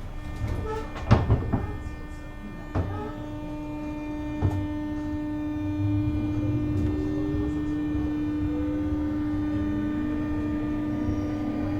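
JR West 201 series electric train accelerating under thyristor chopper control: a steady chopper tone holds while a fainter motor whine rises slowly as the train gathers speed. A few sharp knocks come in the first few seconds.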